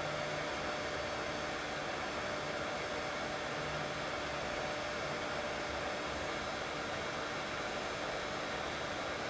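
Steady white noise for soothing a colicky baby to sleep: an unchanging hiss with a faint, even hum beneath it.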